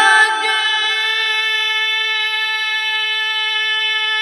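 Male Quran reciter (qari) chanting in the mujawwad style, holding one long, high, loud note steady for about four seconds on a single breath.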